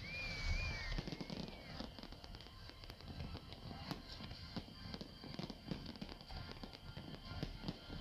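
Fireworks going off in a dense, irregular barrage of crackles, pops and bangs, with heavier thumps at the start. A wavering whistle sounds for about the first two seconds, and music plays underneath.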